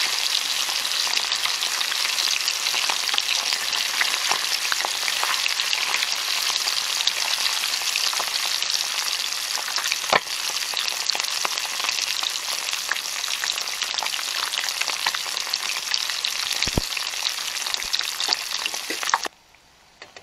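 Small spiced paral fish deep-frying in hot coconut oil: a steady, dense sizzle and crackle with scattered sharp pops and one louder click about halfway through. The sizzle stops abruptly near the end.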